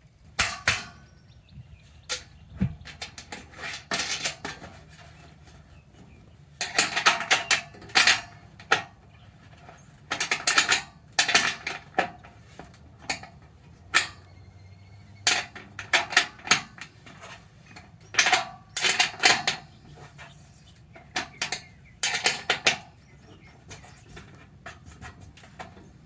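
Metal hardware clinking and clattering as galvanized steel garden bed panels are bolted together, in irregular bursts of quick clicks with short pauses between.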